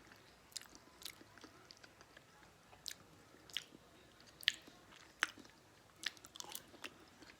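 Close-miked mouth sounds of a person eating: chewing with short, sharp wet clicks and smacks at an uneven pace, faint.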